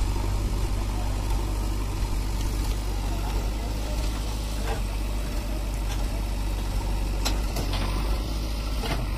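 Diesel engines of a JCB backhoe loader and a Mahindra tractor running steadily as the backhoe's arm pushes against a loaded tractor trolley. A few short sharp knocks come near the end.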